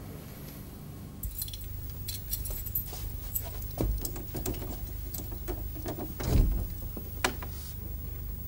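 Keys jangling and scraping at a door lock, with small clicks as the key is worked. About six seconds in there is a dull thump as the door opens, then a sharp click.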